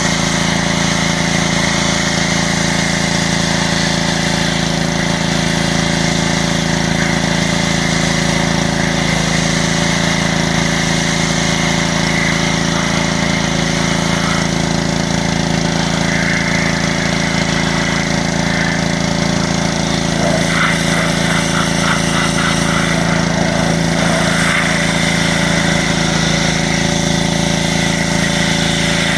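Troy-Bilt 5-horsepower gas pressure washer engine running steadily under load, with an unchanging low drone.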